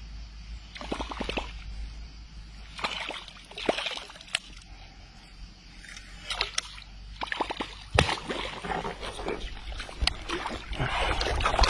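Water sloshing and splashing in irregular bursts as a hooked fish thrashes at the surface, with a few sharp clicks.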